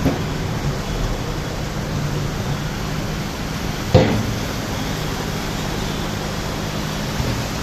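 Steady rushing noise of floodwater running across a road, under a low hum of vehicle engines. A brief sharp knock about four seconds in.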